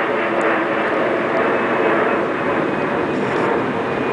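Steady rushing noise with no break or distinct event.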